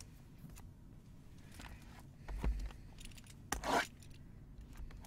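Quiet handling of a shrink-wrapped trading-card box: a soft low thump about two and a half seconds in, then a short rustle of plastic wrap a second later.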